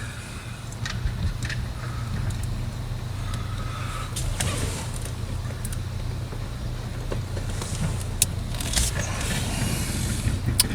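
Small scattered clicks and scrapes of a metal pin being pushed against the plastic hinge of an automatic shifter's gear selector button, which is not yet coming out, over a steady low hum.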